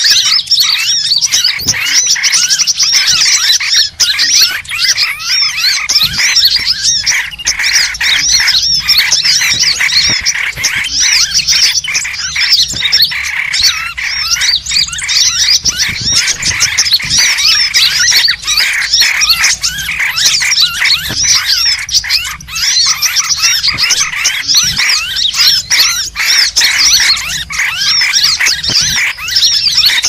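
Bird-lure call recording: a dense chorus of many small birds chirping and trilling over one another, without a break.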